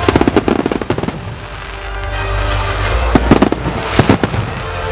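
Aerial firework shells bursting: a rapid string of bangs through the first second, then further quick clusters of bangs around three and four seconds in, over music playing throughout. Recorded on the camera's built-in microphone.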